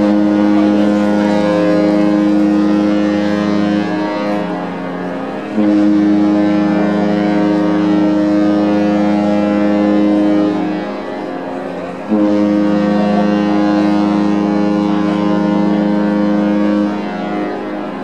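Cruise ship Nieuw Amsterdam's deep horn sounding three long blasts, each about four to five seconds, with short gaps between them.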